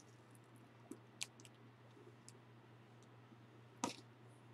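A few faint, scattered clicks and ticks from handling an old box covered in scotch tape, with one sharper click near the end; otherwise near silence.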